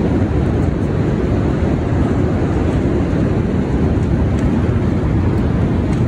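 Windstorm gusts heard from inside a tent: a loud, continuous rush of wind with a deep rumble.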